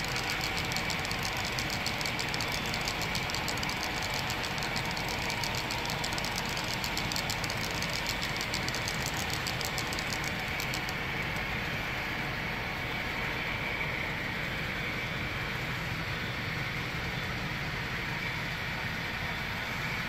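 HO scale model coal hopper cars rolling past on the track, their wheels clicking rapidly over the rail joints; the clicking stops about halfway through, leaving a steady hum.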